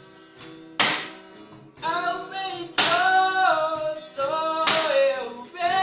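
Music with singing and instruments, punctuated by a sharp percussive hit about every two seconds.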